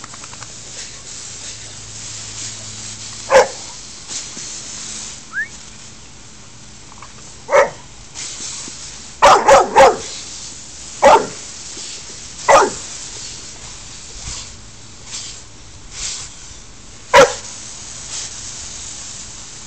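Boxer dog barking: about eight short, sharp barks spaced a few seconds apart, with a quick run of three about halfway through.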